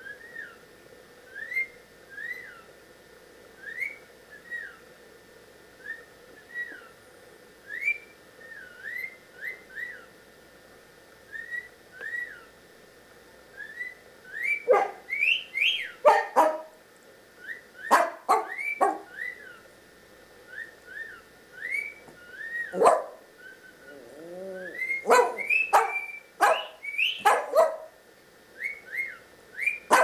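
Cockatiel whistling a string of short rising-and-falling notes, about one a second. About halfway through, louder, sharper calls come thick and fast.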